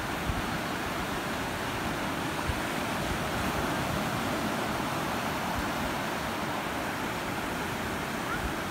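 Ocean surf breaking and washing up the beach: a steady, even rush of water.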